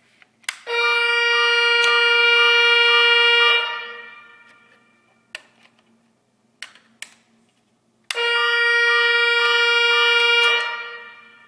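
Nugelec Type 4 fire alarm sounding twice under test, each time a loud, steady, horn-like tone lasting about three seconds. There are a few sharp clicks in the gap between the two soundings.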